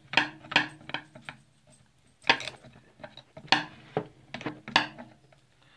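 Sharp metallic clicks and scrapes, about eight of them at irregular intervals, of a chainsaw and tools being handled, over a steady low hum.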